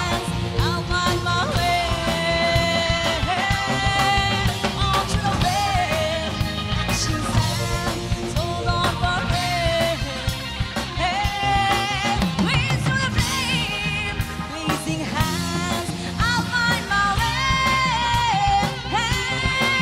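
A woman singing a Bengali song live into a microphone, backed by a band with drum kit and guitars.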